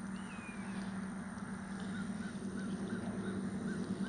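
Bird calls: one downward-slurred call just after the start, then a run of short repeated notes, about three a second, from about halfway through. Under them is a steady low hum.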